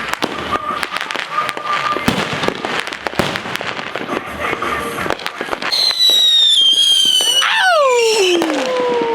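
Consumer fireworks going off in rapid succession, a dense run of pops, bangs and crackles. About two-thirds of the way through, loud whistles take over: one high whistle slowly falling in pitch, then one sliding steeply down.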